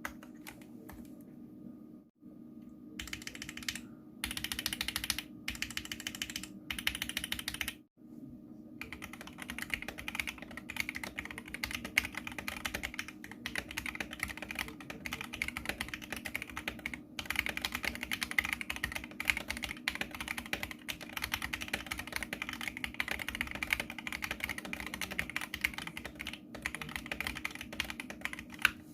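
Typing on a mechanical keyboard fitted with swappable keycaps: a few scattered keystrokes, then choppy bursts of typing with abrupt breaks, and from about a third of the way in, fast continuous typing. A faint steady hum sits underneath.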